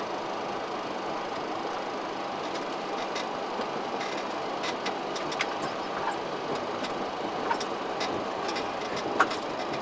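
Steady rushing cockpit noise of a Boeing 737-500 taxiing, with scattered light clicks and knocks from about three seconds in and one sharper knock near the end.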